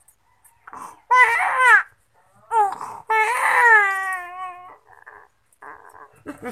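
Infant crying in two bursts: a short cry about a second in, then a longer wavering wail that falls in pitch and fades out about halfway through.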